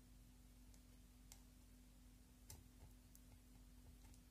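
Near silence broken by a few faint clicks, the loudest about two and a half seconds in: a plastic spatula scraping and tapping inside a plastic lip balm case. A faint steady hum runs underneath.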